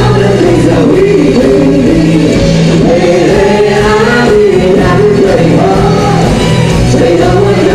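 Live band playing a song, with a singer's voice carrying the melody over the instruments.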